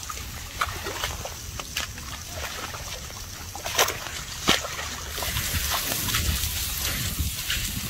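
Wet mud and puddle water sloshing and splashing as a baby elephant rolls in a muddy puddle, with two sharper splashes about four seconds in.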